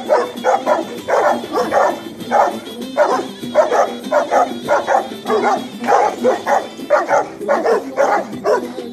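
Rottweiler and Kangal-cross dogs barking hard and without pause, about three barks a second, with barks from more than one dog overlapping.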